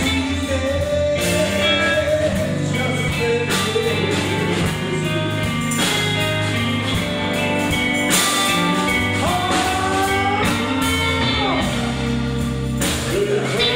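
Live blues-rock band playing: electric guitars, bass and drums with cymbal crashes every couple of seconds, and a lead line whose notes bend and slide up about two-thirds of the way through.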